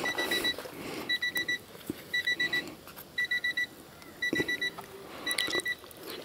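Electronic beeper sounding a steady pattern of four quick high beeps, repeating about once a second, with a dull knock about four seconds in.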